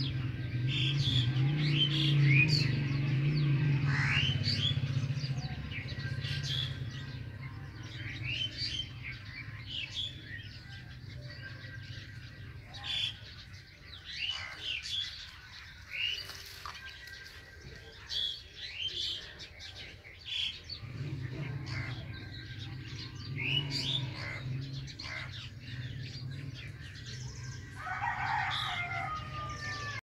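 Crows cawing among many short chirps of other birds in the trees. A low steady hum lies under the calls over the first few seconds and again near the end.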